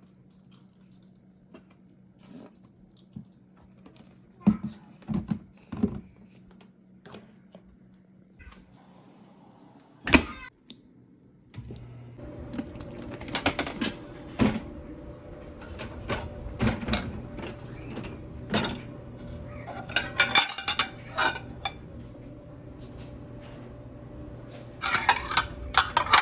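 Dishes being handled: scattered clinks and knocks of plates and cutlery. A steady low hum comes in about halfway through.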